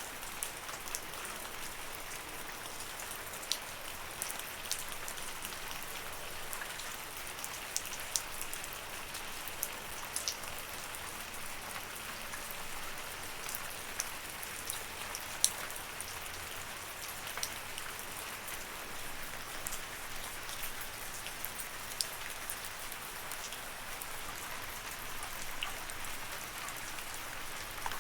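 Steady rain: an even hiss of rainfall with scattered sharp taps of single drops striking close by, one louder tap about halfway through.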